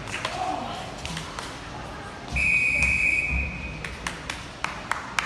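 Referee's long whistle: one steady, high note held for about a second and a half, the signal calling swimmers up onto the starting blocks. A few sharp taps follow near the end.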